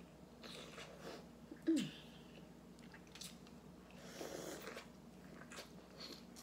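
Close-miked eating: wet mouth clicks, chewing and sucking on a piece of seafood-boil food, and finger licking. About two seconds in comes a short falling 'mm' hum, the loudest sound.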